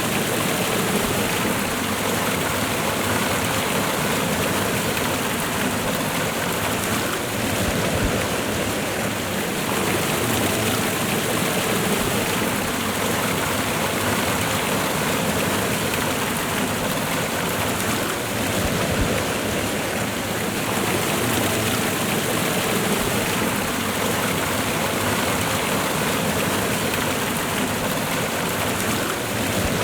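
Waterfall and fast-running river water rushing steadily, a constant even roar of moving water.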